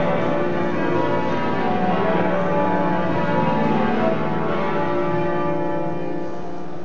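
Pershore Abbey's church bells being rung in changes, the strokes overlapping into a continuous ringing cascade that eases slightly near the end, heard inside the abbey.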